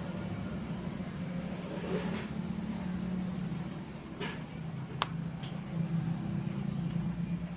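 M8 × 1.25 hand tap being turned into a drilled-out exhaust bolt hole in a cast engine flange: a few faint metal scrapes and one sharp metallic click about five seconds in, over a steady low motor hum in the background.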